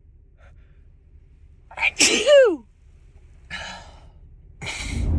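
A person sneezes once, loudly, about two seconds in: a sharp onset followed by a voiced cry that falls in pitch. Two shorter breathy noises follow. The sneezing comes from a cold coming on and from allergies.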